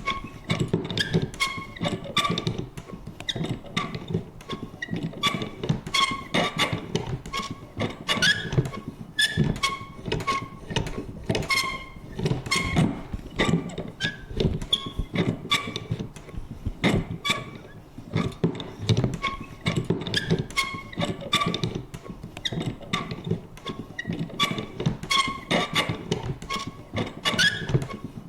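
A vintage paper punch working over and over: quick, irregular knocks and clunks of its mechanism, mixed with short high squeaky creaks.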